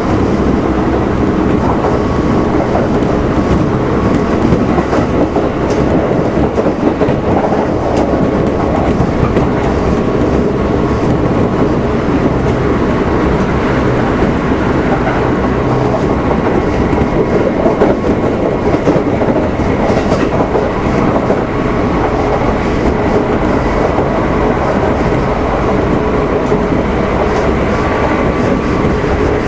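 Kintetsu 1259 series electric train running at steady speed, heard aboard motor car Mo 1268: continuous wheel and rail noise with the traction motors' steady hum.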